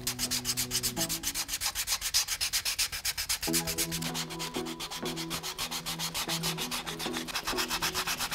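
The edge of a stitched leather wallet being sanded by hand: a dry, rasping rub going rapidly back and forth at about seven strokes a second. Quiet background music plays under it.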